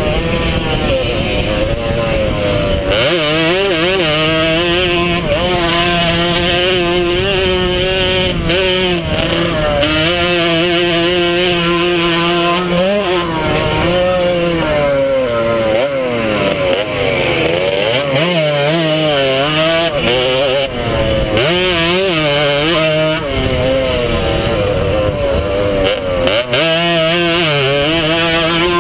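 100cc two-stroke motocross bike engine under hard riding, its pitch climbing as the throttle opens and falling as it backs off, over and over. It drops lowest for a few seconds in the middle before climbing again.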